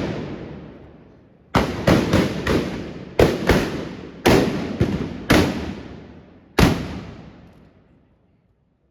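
Trabucs, Catalan black-powder blunderbusses, fired in a ragged volley of blank shots: about ten loud bangs, several in quick succession, each with a long echoing tail. The last shot comes about two-thirds of the way through and fades away.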